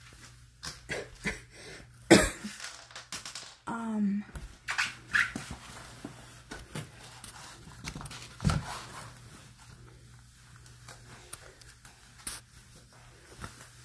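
Footsteps in rubber clogs on a wooden floor with scattered knocks and scuffs, the sharpest bump about two seconds in, and a short whine that rises and falls about four seconds in.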